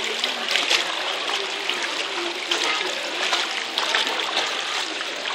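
Knee-deep floodwater splashing and sloshing as an improvised plank boat is pushed through it by people wading, with many small irregular splashes.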